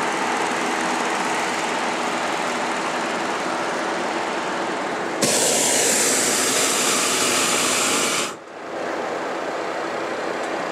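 Hot-air balloon's propane burner firing in one loud hissing blast of about three seconds, starting about halfway through and cutting off sharply, over a steady background noise.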